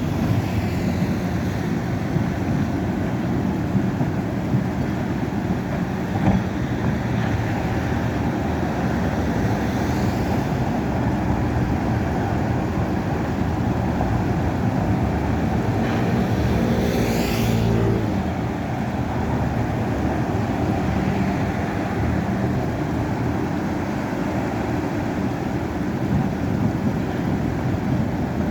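Diesel engines of heavy earthmoving machines, a dozer and backhoe loaders, running under load with a steady rumble. An engine revs up about two-thirds of the way through, then drops back.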